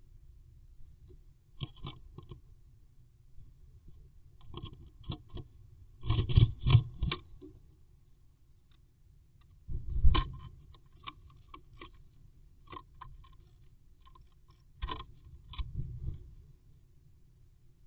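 Great tit moving about inside a wooden nest box: irregular bursts of taps, scratches and scrapes against the wood, loudest in a quick run of knocks about six seconds in and a single hard knock about ten seconds in.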